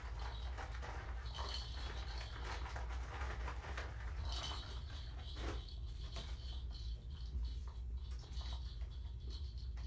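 Kittens moving about and playing on a blanket among toys: faint scattered light taps and rustles over a steady low hum.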